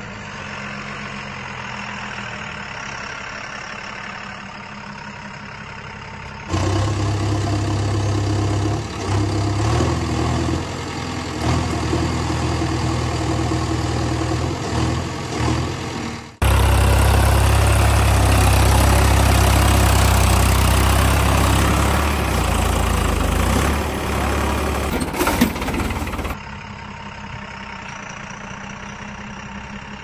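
Heavy diesel vehicle engines idling and running, laid on as recorded sound effects. The sound jumps abruptly between separate clips three times: a quieter idle, then louder running, louder still from the middle on, then back to a quieter idle near the end.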